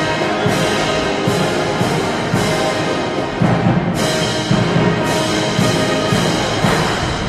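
Military band music: brass playing over heavy drum beats that land about every half second to a second.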